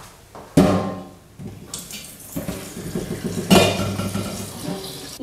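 Cooking pot of boiled potatoes being drained into the sink: hot water pouring out with knocks of the metal pot, a loud one about half a second in and another about three and a half seconds in.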